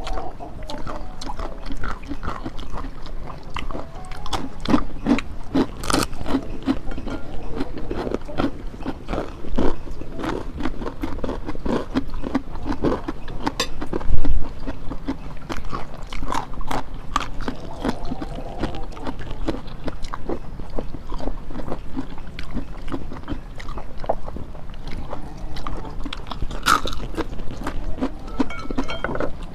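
Close-miked chewing and crunching of crispy shrimp peyek crackers and raw long beans, a steady run of crackling bites, with a single louder thump about halfway through.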